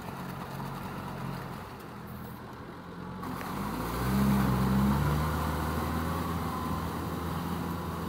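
Kubota tractor's diesel engine running steadily under load as it drives a rotary tiller through wet paddy mud. It grows louder about four seconds in.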